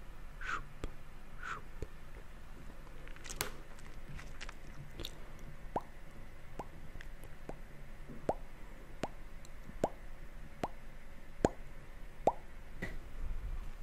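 Close-miked mouth sounds: a few soft wet clicks at first, then a steady run of sharp lip pops, a little under one a second, the last few louder.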